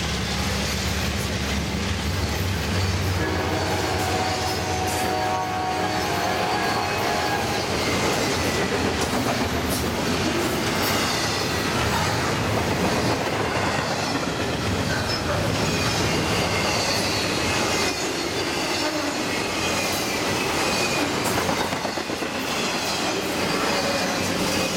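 Loaded double-stack container well cars of a freight train rolling past at speed: a steady rumble and rattle of steel wheels on rail, with clicks over the rail joints and intermittent high wheel squeal. At the start, the drone of the departing diesel locomotives fades out.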